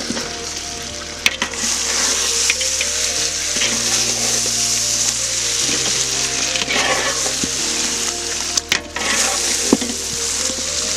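Pepper chicken sizzling in a large aluminium pot while a metal ladle stirs it, with a steady frying hiss and a few sharp knocks of the ladle against the pot.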